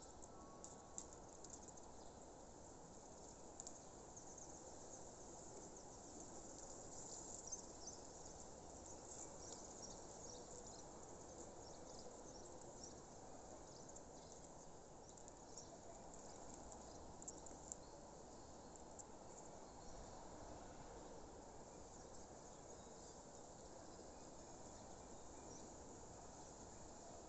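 Faint outdoor nature ambience: scattered short, high chirps, busiest in the first half, over a steady low background hiss.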